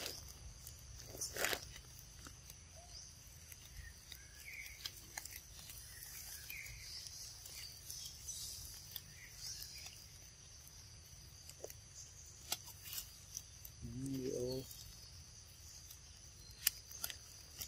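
Quiet forest ambience: a steady high insect hum with a few bird chirps, scattered small clicks and rustles, and one short pitched call, rising in pitch, about fourteen seconds in.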